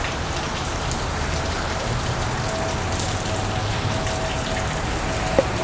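Steady rain falling, an even wash of noise, with one sharp click near the end.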